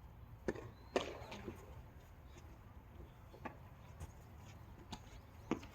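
Tennis ball struck by rackets and bouncing on the court during a rally: a few sharp pops spaced one to two seconds apart, the loudest about a second in.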